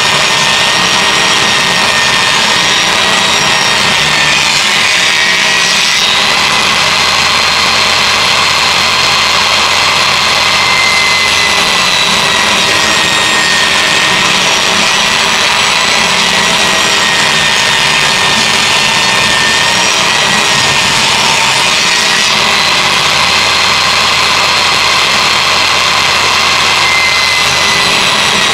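Ryobi table saw running with a steady, loud, high motor whine while narrow poplar and alder strips are ripped through the blade. A low hum joins in twice, for several seconds each time.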